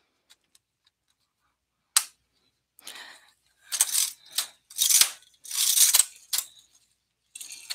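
Brother 260 knitting machine carriage being pushed back and forth over the needle bed in short strokes, clicking and rattling as it is tested against the newly fitted row counter to see whether it trips it. A sharp click comes about two seconds in, then a run of short metallic rattling strokes.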